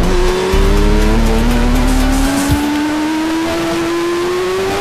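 Sport motorcycle engine at high revs, its pitch climbing slowly and steadily as the bike accelerates at speed.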